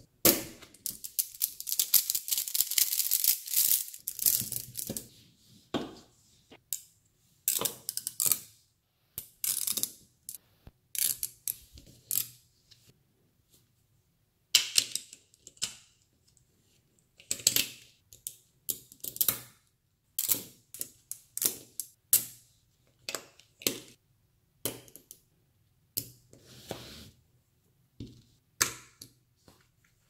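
Neodymium magnet balls clicking and clattering as blocks of them are snapped together and pulled apart by hand. There is a dense rattle in the first few seconds, then scattered clusters of sharp clicks with short pauses between them.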